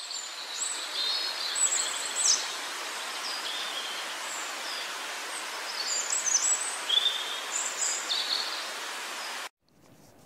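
Forest ambience: small birds chirping and whistling in short high calls over a steady hiss. It cuts off suddenly near the end.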